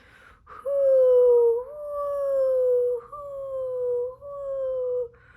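A woman's voice imitating a howling snowstorm wind: four long, slowly falling 'hoooo' howls, one after another.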